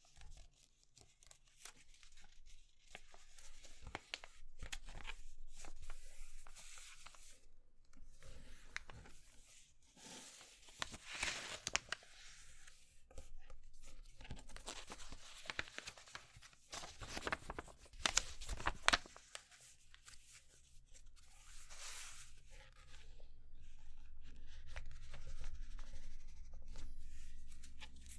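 A sheet of paper being folded and creased by hand: irregular rustling and crinkling, with sharp crackles as fingers press and run along the folds.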